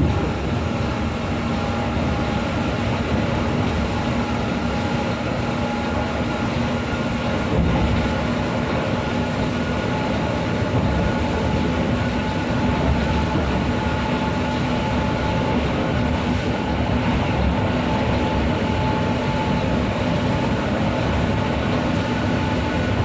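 Steady interior noise of a coach bus cruising at highway speed: engine drone and tyre noise on a wet road, with a few faint steady whining tones.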